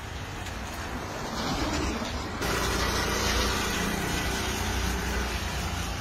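Motor vehicle traffic on a wet street: engine rumble with tyre hiss, louder from about two and a half seconds in.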